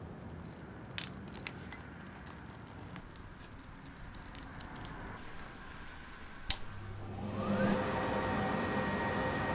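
Paper kindling catching and crackling faintly in a coal forge fire, with a few sharp clicks. About seven seconds in, a louder steady hum joins, with a whine that rises in pitch and then holds.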